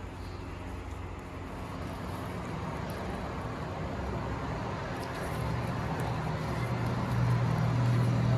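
Low, steady engine hum that grows louder over the last few seconds.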